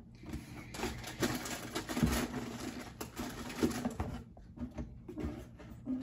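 A hand rummaging blindly among packaged snacks inside a cardboard box: plastic wrappers rustling and crinkling, with light knocks against the box, busiest in the first few seconds.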